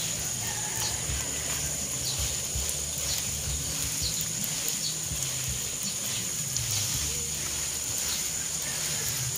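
Water spraying steadily from a garden hose nozzle onto seedling leaves in trays, a constant hiss.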